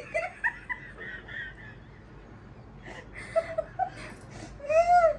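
Women giggling and snickering under their breath, with a short high-pitched laugh near the end.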